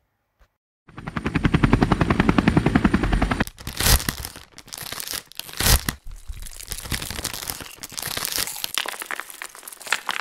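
A sound effect of a flying machine lifting off, added for comedy. A fast, even chopping rhythm of about fifteen beats a second lasts for about two and a half seconds, then gives way to a rushing noise broken by two loud bangs, about four and six seconds in.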